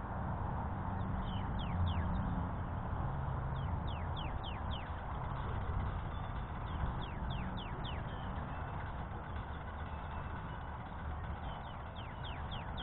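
Birds calling in short runs of three or four quick falling notes, repeated several times over a steady low rumble.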